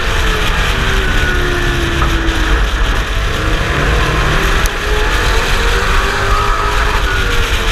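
Pro Truck race engine running hard at racing speed, heard from a hood-mounted onboard camera with heavy wind and road rumble. The engine note slides down and back up with the throttle through the turns.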